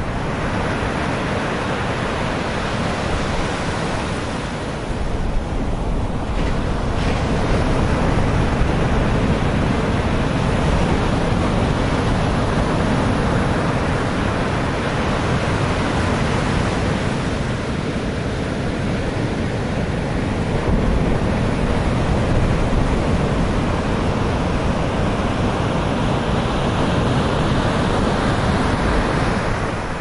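Rough Mediterranean surf breaking against and over a concrete sea wall, heard as a continuous rush of noise that stays fairly even throughout, with wind buffeting the microphone and weighting it toward the low end.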